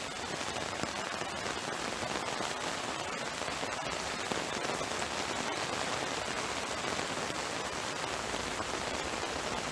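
Heavy tropical rain pouring down, a dense steady hiss with many small drop ticks.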